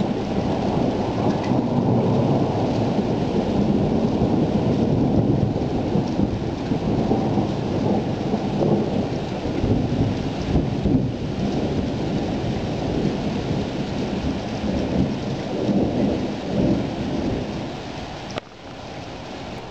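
Thunder rolling in a long continuous rumble over steady rain. Near the end the rumble eases and breaks off suddenly, leaving just the rain.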